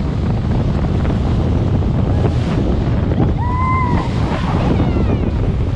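Strong wind buffeting the microphone on an open ferry deck, over the steady rush of choppy water. About halfway through comes one short high call, followed by a couple of faint falling squeaks.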